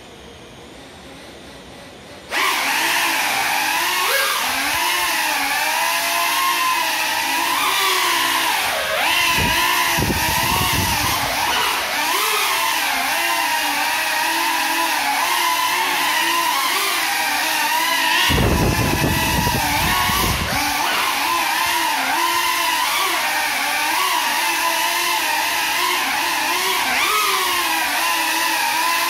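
Small FPV quadcopter's motors and propellers, flying on broken props: they start up abruptly about two seconds in and then whine, the pitch rising and falling as the throttle changes. Twice a low rushing noise swells under the whine for a couple of seconds.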